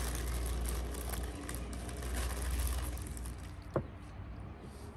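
Baking paper rustling and crinkling as a cake roll is rolled up in it, over a low rumble, for about three seconds; near the end a single sharp clink of cutlery.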